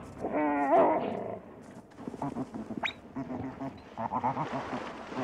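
Coyotes squabbling over food: a high wavering yelp near the start, then rough growling and snarling, with a brief thin squeal about three seconds in.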